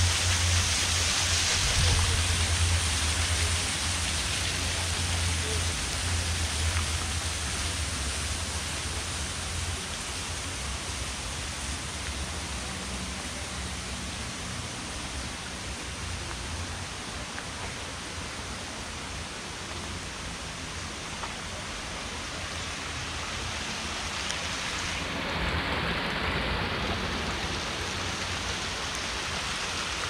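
Steady rushing-water noise, an even hiss with no distinct events, with a low rumble underneath for roughly the first ten seconds.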